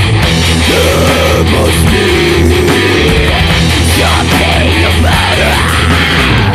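Heavy metal song with electric guitars over a dense, steady low end. A melodic line bends up and down above it.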